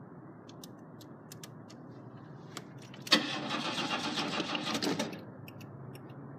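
Starter motor cranking the 1985 Buick Century's engine for about two seconds, starting about three seconds in and stopping abruptly without the engine catching. The fuel pump fuse has been pulled, so it cannot start.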